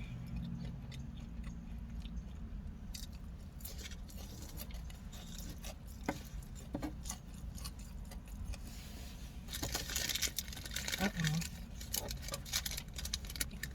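Eating sounds: chewing and mouth clicks over a steady low hum in a car's cabin, with a denser stretch of rustling and clicking in the last few seconds.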